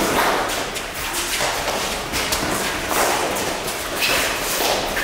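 Eton fives rally: irregular thuds and taps as the hard ball is struck with padded gloves and bounces off the court's walls, mixed with the players' footsteps on the floor, ringing in the walled court.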